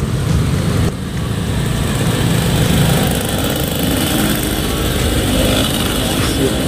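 A small engine running steadily, a continuous low rumble.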